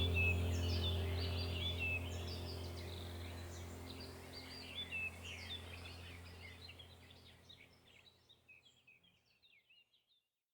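A chorus of many birds chirping and trilling over a steady low hum, the whole slowly fading out to silence near the end.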